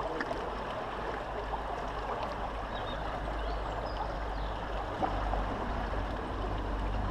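Shallow river water running over stones, a steady rushing with a low rumble underneath.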